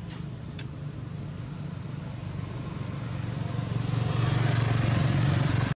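A motor vehicle engine humming steadily, growing louder over the last couple of seconds as if approaching, then cutting off suddenly.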